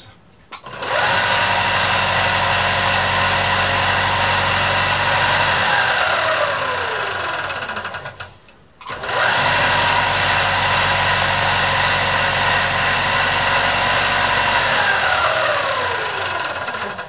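Belt sander switched on, running steadily while the decorative detail is sanded into the ends of wooden guitar finger braces, then switched off and spinning down with a falling whine. This happens twice: it starts about a second in, winds down from about six seconds, starts again just after the halfway point and winds down near the end.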